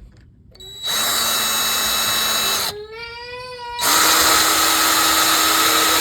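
Power drill/driver running at a steady whine in two long runs, driving screws into door knob hardware.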